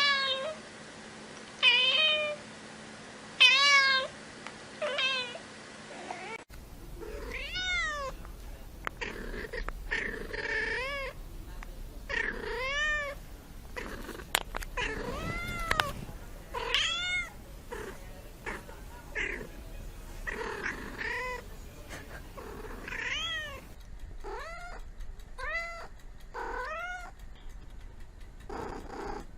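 Domestic cat meowing over and over, short meows that rise and fall in pitch, one every second or two. About six seconds in, the recording changes to another clip of meowing, with some longer, drawn-out meows.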